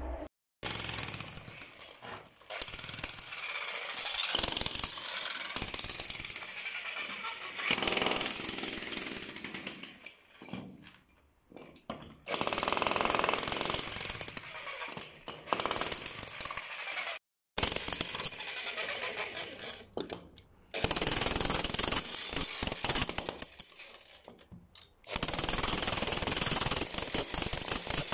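Corded electric demolition hammer chiselling into a concrete floor, running in several bursts with short stops between them.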